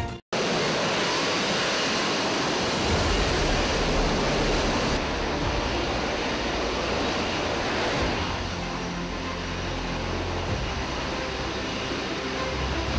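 Steady rushing jet noise with a low rumble from a Lockheed Martin F-35B hovering on its lift system, its downwash blasting the sea below. The sound shifts in character about five seconds in and again at about eight.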